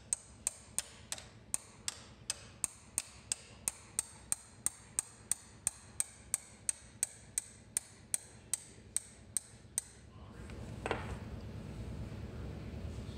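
Hammer striking a steel tool set in the bore at the back of a Jaguar E-Type XK engine's crankshaft, driving out the stuck bronze pilot bushing. The metal-on-metal taps come about three a second and stop about ten seconds in.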